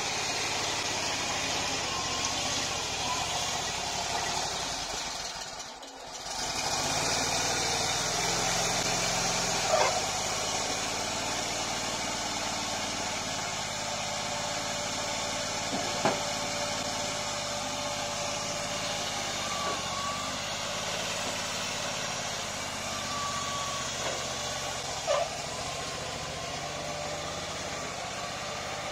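Engine of a homemade mini front loader running steadily while it works, digging and scraping dense soil. The engine sound drops away briefly about six seconds in. A few sharp knocks stand out over the engine.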